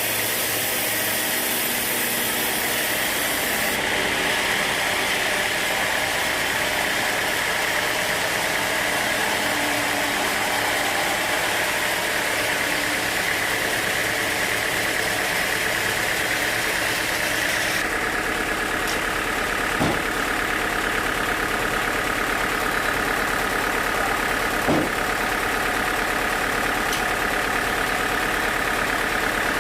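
Sawmill machinery running steadily with an engine-like drone. Its tone shifts abruptly twice, and there are two short knocks in the second half.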